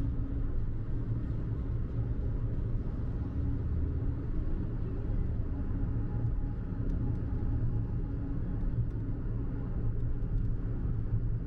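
Steady low rumble of a moving vehicle, with a faint steady hum in it.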